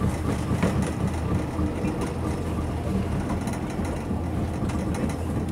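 Motorboat engine running steadily as the boat moves across open water, a constant low hum under a haze of water and wind noise.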